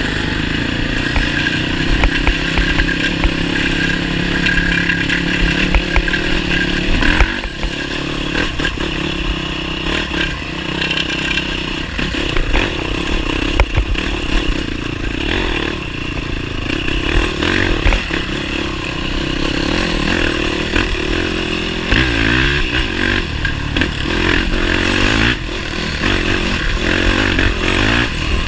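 Motorcycle engine running, its revs rising and falling now and then, with clattering over the top.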